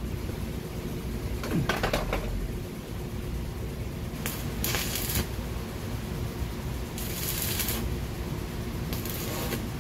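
Stick arc welding a steel patch over a rust hole in a car's exhaust pipe: three short bursts of crackling arc, about four and a half, seven and nine seconds in. A clatter comes about two seconds in, over a steady low hum.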